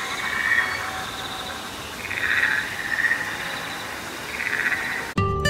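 Buzzy, trilling frog-like calls, one after another about a second apart, over a steady high insect-like drone. Just before the end it cuts suddenly to strummed acoustic guitar music.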